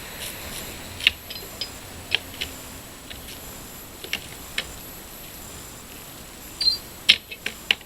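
Scattered sharp clicks and knocks as wooden pallet boards are pried apart with a Pallet Buster, with a cluster of louder knocks near the end.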